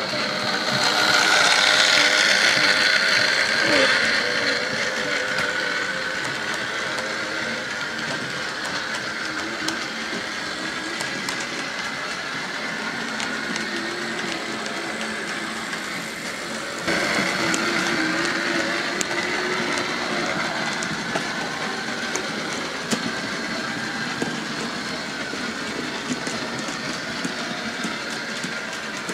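OO gauge model trains running round a layout: motor hum and wheels clicking over the rail joints, louder as trains pass close in the first few seconds and again a little past halfway.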